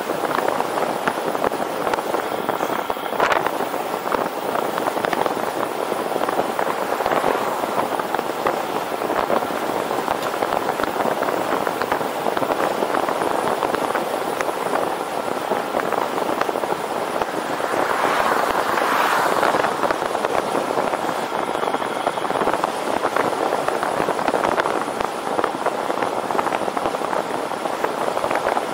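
Steady rushing wind and road noise from riding a road bicycle at speed, with crackly buffeting on the microphone; a louder swell comes about two-thirds of the way through.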